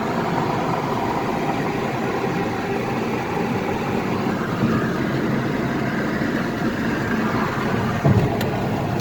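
Steady car engine and road noise heard from inside the cabin, with a brief knock about eight seconds in.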